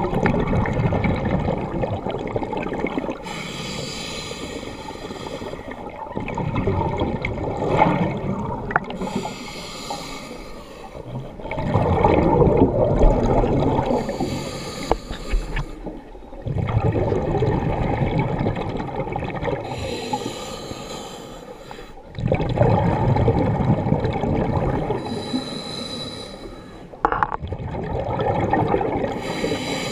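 Scuba diver breathing through a regulator underwater: quieter stretches of inhaling alternate with long rumbling, bubbling exhalations, in a slow cycle of a breath every several seconds.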